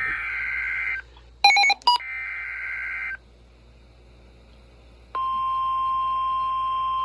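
Emergency alert broadcast starting a new warning. First come two buzzy digital SAME header data bursts, about a second each, with a short loud beep between them. After a pause of about two seconds, the steady 1050 Hz weather radio warning alarm tone comes on about five seconds in.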